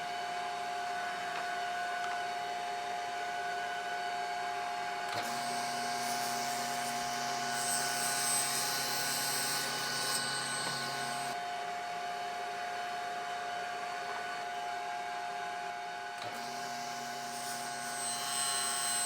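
Shop power tool motor running steadily with a constant whine. A harsher, hissier layer joins about five seconds in, drops out near eleven seconds and comes back near sixteen seconds.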